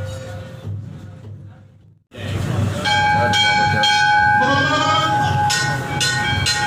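Temple bells struck about twice a second, their ringing layered over a long steady tone. The sound fades and drops out briefly about two seconds in, then comes back at full strength.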